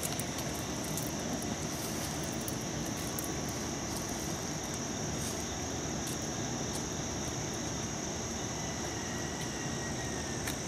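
Steady outdoor ambience: a low rumble under a continuous high insect buzz, with a few faint clicks.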